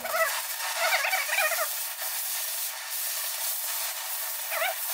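Oxy-fuel cutting torch hissing steadily as its oxygen jet cuts a bevel through steel plate. A few short chirps sound in the first two seconds and once more near the end.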